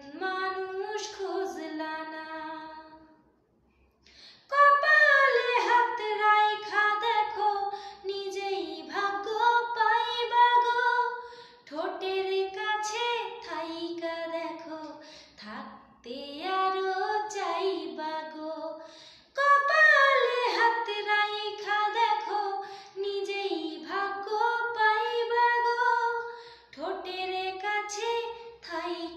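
A woman singing a Bengali song unaccompanied, in long held phrases, with a short break about three seconds in.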